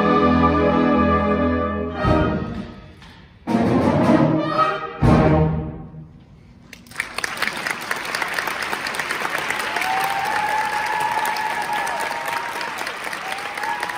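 Concert band of brass and woodwinds holding a loud sustained chord, then closing the piece with three sharp accented chords about a second and a half apart. After a short lull, audience applause starts about seven seconds in and continues.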